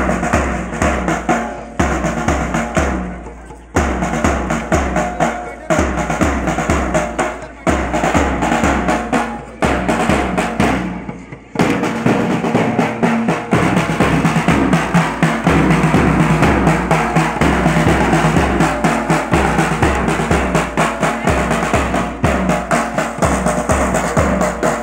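Marching drums: a bass drum struck with a padded mallet keeps a steady beat while two snare drums play rolls and patterns over it. For about the first 11 seconds the drumming comes in phrases of roughly two seconds with short breaks between them, then it runs on without a break.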